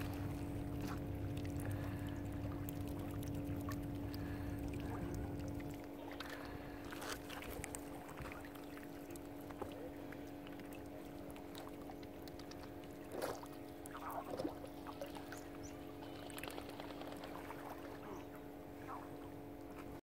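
Lake water lapping with small splashes around swimming mute swans and mallards, over a steady hum. A low rumble underneath dies away about six seconds in, and a few brief sharper sounds stand out a little after the middle.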